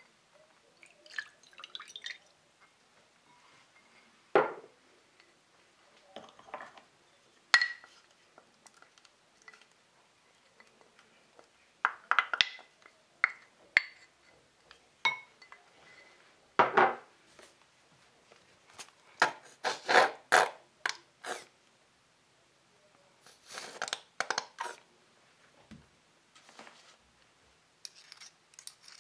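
Small glass bowls knocking against a glass mixing bowl, with wooden and metal spoons scraping and tapping as liquids and spices are added: scattered light clicks and knocks, with a run of quick taps about two-thirds of the way through.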